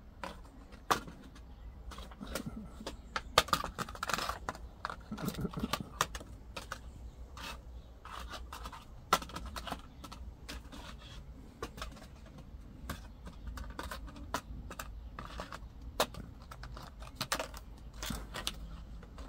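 A Goffin's cockatoo playing with a black plastic plant pot: irregular clicks, taps and scrapes as it knocks and pushes the pot about with its beak.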